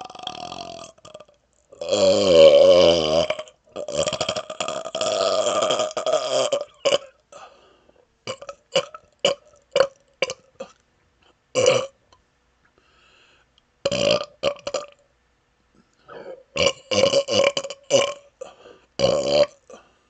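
A man burping over and over: a loud, long burp with a wavering pitch about two seconds in, a few more drawn-out burps after it, then runs of short, clipped burps in clusters.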